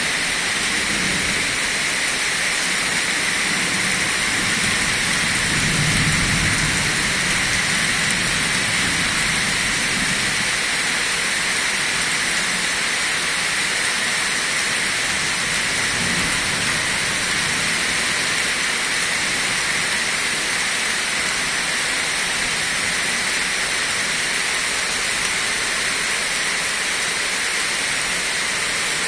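Heavy rain pouring steadily onto tree foliage and the ground, a dense even hiss. A low rumble swells and fades around six seconds in.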